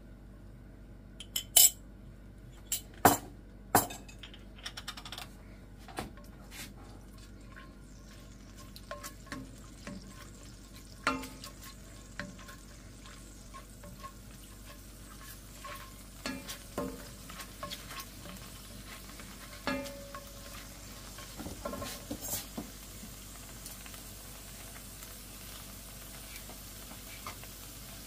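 A metal teaspoon tapping sharply against an enamelled pan a few times in the first few seconds, knocking off garlic paste, then a spoon stirring and scraping the garlic paste around in the oil with occasional knocks against the pan. A faint sizzle builds as the oil heats.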